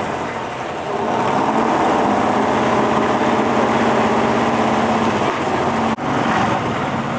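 1969 Chevrolet Corvette C3's V8 idling with a steady, even note as the car creeps forward. The sound cuts out for a moment about six seconds in, then carries on.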